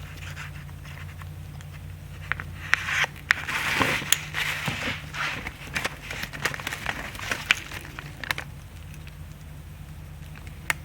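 Small sharp clicks and scraping of a fine screwdriver working the plastic locking tab of a wiring connector, with rustling as the wires are handled, busiest about three to five seconds in. A low steady hum runs underneath.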